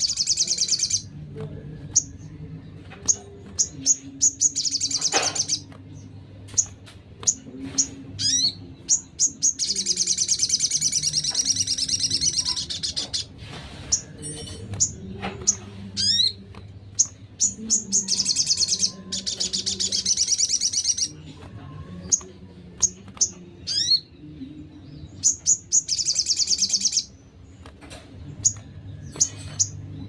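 Recorded songs of small songbirds, the siri-siri kecil, the velvet-fronted nuthatch (rambatan paruh merah) and the sogon, played as a masteran for training cage birds. High, very rapid trills come in long bursts every few seconds, and sharp single chips and quick rising whistles fall between them, over a faint low hum.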